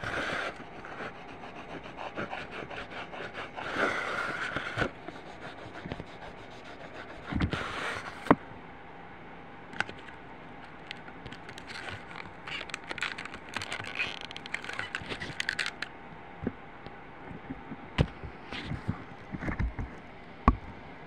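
Oil pastel scraping over paper in intermittent strokes, with a few sharp knocks in between.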